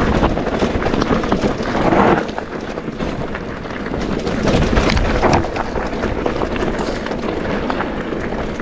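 Mountain bike rolling fast down a dirt trail: tyres on gravel and roots, with a steady stream of rattles and clicks from the bike, and wind buffeting the microphone.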